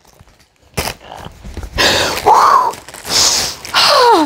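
Clear plastic packaging bag crinkling and rustling as it is handled and pulled off an item, in several bouts. Near the end a woman's high voice slides down in pitch.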